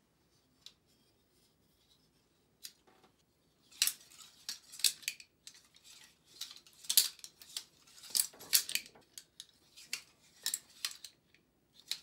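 Cold Steel FGX balisong, a butterfly knife made of synthetic materials, being flipped: its handles swing and click against each other. A few lone clicks at first, then quick runs of clicking from about four seconds in.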